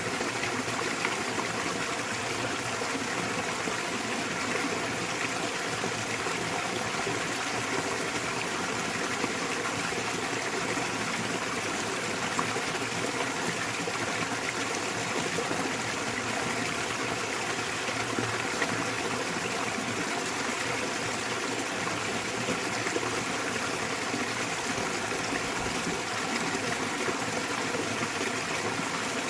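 Small waterfall pouring into a mountain stream: a steady rush of falling and running water, with small splashes scattered through it.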